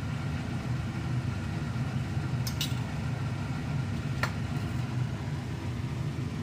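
A steady low hum, with a faint sharp click about two and a half seconds in and another about four seconds in.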